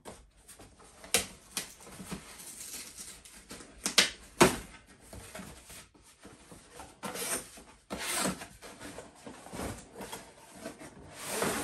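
Cardboard shipping box being opened by hand: packing tape picked at and torn, flaps scraping and rustling, then the box slid up and lifted off. Irregular sharp snaps and scrapes, the loudest about four seconds in, with longer cardboard scraping later on.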